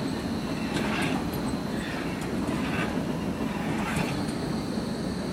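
Hamburg U-Bahn DT5 electric train rolling past on the track, a steady rumble with a few wheel clicks, as the last car goes by.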